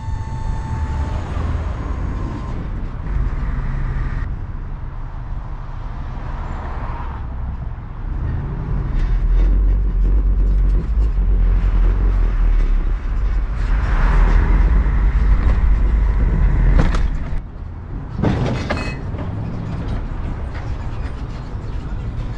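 Tow truck driving, heard from a camera mounted on its bed: a low rumble of engine, road and wind noise that grows louder through the middle. It eases off near the end, with a couple of sharp clatters just before.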